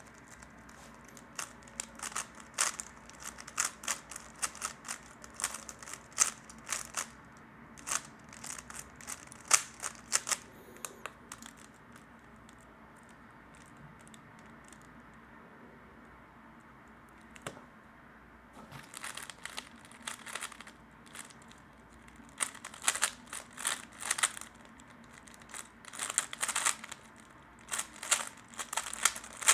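A 3x3 Rubik's cube being turned fast in the hands, a rapid run of plastic clicks and rattles in bursts, with a quiet stretch of several seconds in the middle before fast turning starts again.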